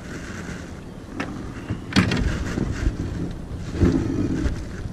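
Wind buffeting the microphone, with a sharp knock about two seconds in and a few lighter clunks as a crab-pot buoy and its line are hauled in against the side of a small boat.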